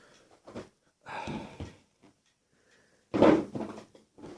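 Handling noises from unboxing a phone: short knocks and rustles of the box and its contents being moved about, with the loudest knock about three seconds in as something is set down.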